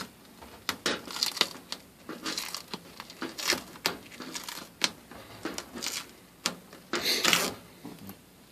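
Irregular clicks, scrapes and crinkling as hands pull tape off a gas furnace part, with a longer tearing rasp about seven seconds in.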